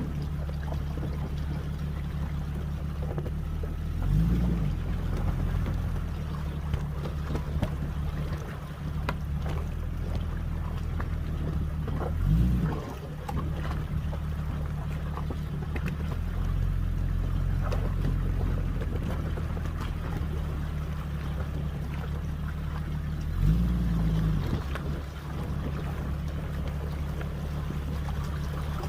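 Jeep engine droning steadily under way, with three brief swells in engine note about four, twelve and twenty-four seconds in.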